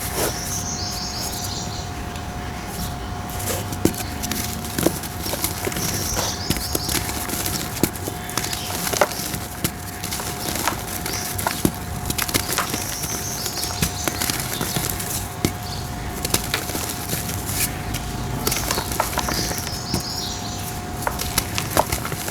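Dry red brick-dirt shapes crumbling: a dense, continuous run of gritty crackles with scattered sharper snaps, over a faint steady tone.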